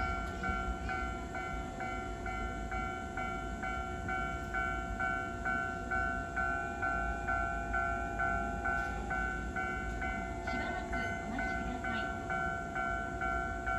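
Level-crossing warning bell ringing steadily, about two strikes a second, over a low steady rumble.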